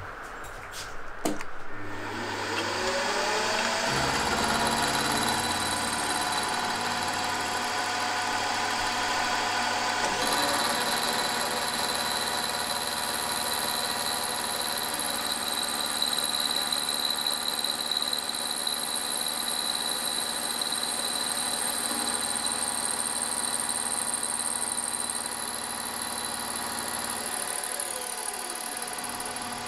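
Milling machine spindle winding up about two seconds in, then running steadily, with the end mill cutting a taper into the metal conrods from about ten seconds in.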